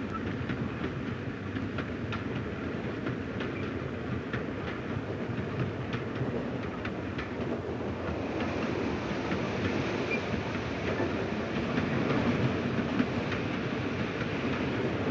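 Passenger train running, heard from inside a compartment: a steady rumble with the wheels clicking over rail joints. The running noise grows louder and brighter about halfway through.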